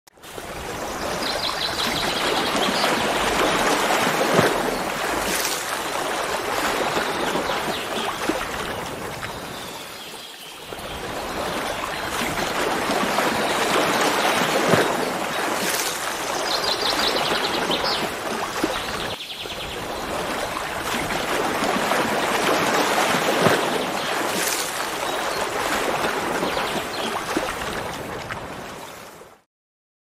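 Rushing, splashing water of a cascading stream: a steady noise that swells and eases, dipping briefly twice, with a faint high trill near the start and again about halfway. It stops suddenly just before the end.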